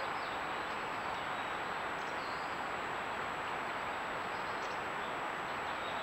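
Steady, even hiss of a trail camera's microphone, with a faint high-pitched electronic whine running under it; the foxes make no calls.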